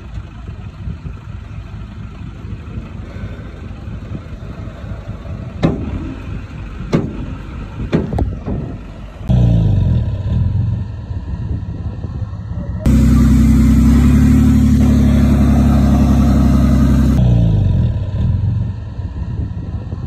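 Bulldozer's diesel engine working, a low rumble with a few sharp clanks in the first half. The engine then revs hard about nine seconds in and louder still from about thirteen seconds, its pitch falling back a few seconds later.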